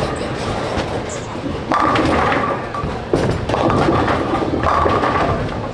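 Bowling alley noise: a bowling ball lands on the lane with a sharp thud about three seconds in and rolls, alongside the clatter and rumble of balls and pins on the lanes.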